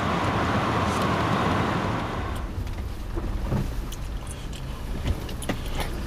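Car cabin noise while driving: a steady hiss of road and wind noise over a low engine hum. The hiss drops away about two and a half seconds in, leaving the low hum and a few faint clicks.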